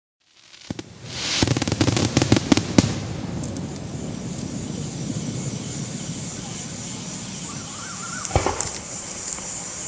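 Fireworks display: a quick run of sharp bangs and cracks in the first few seconds, then continuous noise of the show with a few more cracks near the end.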